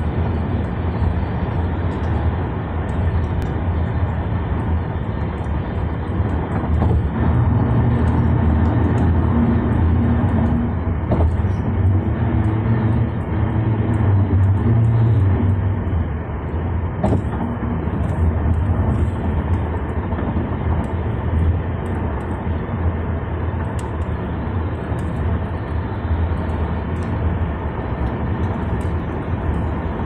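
Loud tyre and road noise inside a car's cabin at freeway speed, with the engine's low hum beneath. It grows stronger and deeper from about 8 to 15 seconds in.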